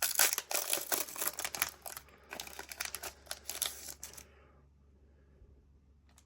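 Foil wrapper of a Pokémon TCG booster pack being torn open and crinkled, a dense crackling that stops about four seconds in.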